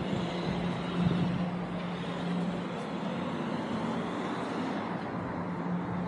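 Road traffic: a motor vehicle running steadily, with an even hum under a broad rushing noise.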